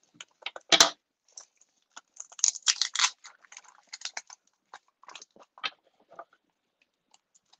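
Clear plastic film wrapped around a small plastic tub crinkling and crackling as it is handled, in irregular crackles and clicks, loudest just before a second in and in a cluster around two to three seconds in.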